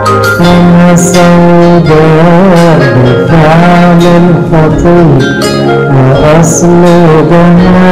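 Arabic Christian hymn music: instruments play a melody with sliding, wavering notes over held bass notes.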